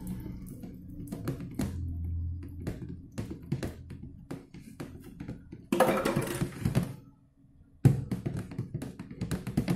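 A plastic spoon stirring a liquid soap mixture in a plastic jug, with many short clicks of the spoon against the jug and two louder stretches of sloshing about six and eight seconds in. Low background music runs underneath.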